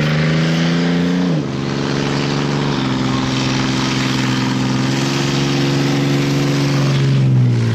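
A motor vehicle's engine accelerating through the gears: its pitch climbs and drops sharply at each shift, about a second and a half in, again near three seconds, and once more near the end. Under it runs a steady rushing hiss.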